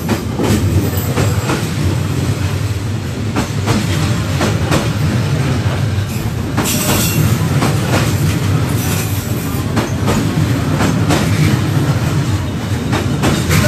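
Passenger train coaches rolling past at close range: a steady low rumble with the clickety-clack of wheels over rail joints, and brief high-pitched bursts twice around the middle.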